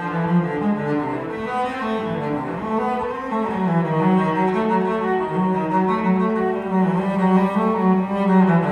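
Recorded cello playing a slow bowed melody in long held notes.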